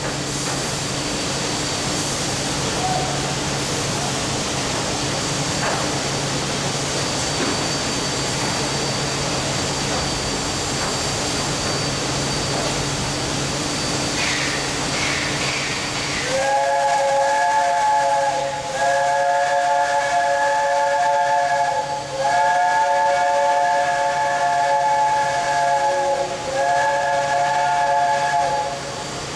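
Gongjian-class industrial steam locomotive hissing steadily as it blows off steam. About halfway through it sounds its chime whistle, several notes together, in four long blasts with short breaks between.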